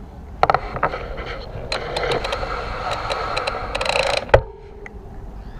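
Bicycle rattling and clattering over rough ground, picked up by a camera mounted on the handlebar stem. A few separate knocks come first, then a couple of seconds of dense clatter that ends in one sharp knock.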